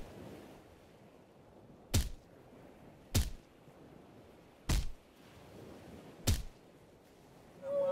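Four sharp whacks spaced unevenly a second or more apart, each cutting off quickly, over a faint steady hiss.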